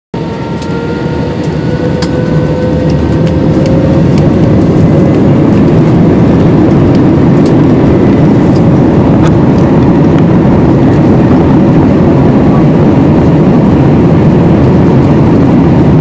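Jet airliner's engines spooling up to takeoff thrust, heard from inside the cabin: a whine slowly rising in pitch as the roar builds over the first four seconds, then a loud, steady roar of the takeoff roll with scattered faint clicks and rattles.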